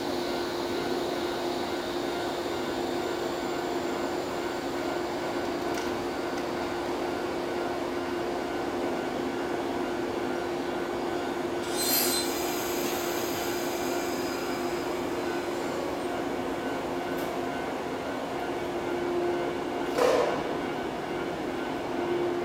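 Shinano Railway 115 series electric train standing at the platform with a steady hum. About halfway through there is a brief sharp high-pitched burst, and near the end a single thump as the train starts to move off.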